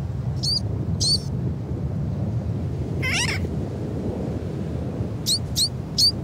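Sooty tern chick calling: short, high, upward-sliding peeps, twice near the start and four in quick succession near the end, with one longer, lower, wavering call about three seconds in. A steady low rumble runs underneath.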